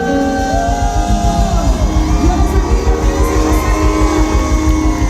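Loud amplified music: voices singing long notes that slide in pitch, over a steady bass beat that comes in right at the start.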